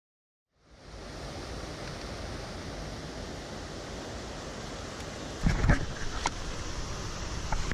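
Steady rush of a shallow mountain stream, starting about half a second in. From about five and a half seconds in, loud thumps and knocks of a hand handling the camera close to the microphone.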